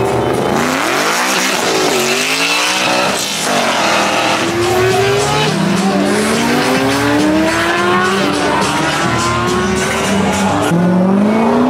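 Cars accelerating hard on the street, engines revving with their pitch climbing over several seconds, dropping and climbing again near the end, with tire squeal.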